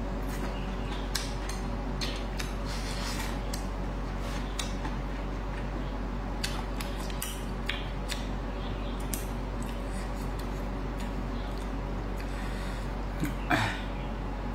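Eating sounds: chewing and mouth smacking, with chopsticks clicking against a ceramic rice bowl. Many short sharp clicks run over a steady low hum, and a louder burst comes near the end.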